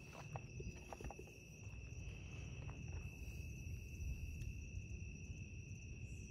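Night insects singing in a steady chorus, one high note held unbroken, over a low rumble of camera handling, with a few soft clicks in the first second.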